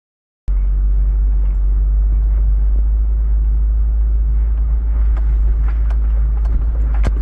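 A loud, steady low rumble that starts abruptly about half a second in, with a few clicks and knocks near the end.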